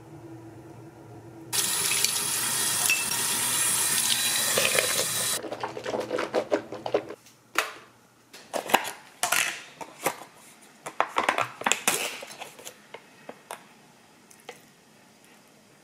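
A tap runs into a sink for about four seconds, coming on a second and a half in and shutting off abruptly. Then dishes and cutlery clink and knock in a string of sharp taps. A low steady hum sounds under the first seven seconds and stops.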